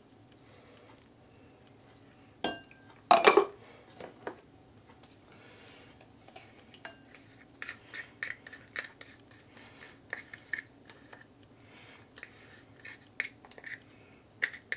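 A utensil clinking and scraping against a small bowl and measuring cup while liquid marinade ingredients are poured and scraped out. There is a loud clatter about three seconds in, then a run of quick taps and scrapes with a light ringing tone.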